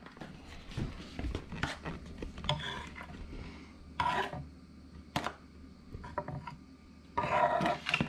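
Metal carving fork scraping and tapping on a wooden cutting board as slices of raw deer heart are pushed across it: an irregular string of small scrapes and knocks, with a louder scrape near the end.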